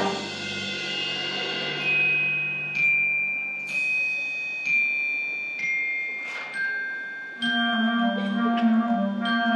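Concert wind band: a full-band chord dies away, then a mallet percussion instrument plays single ringing bell-like notes about once a second, mostly stepping down in pitch. About three quarters of the way through, the band comes back in with soft held chords.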